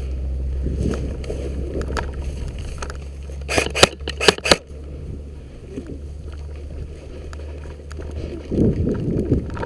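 Wind and handling rumble on a body-worn camera's microphone, with four sharp cracks in quick succession a little past the middle.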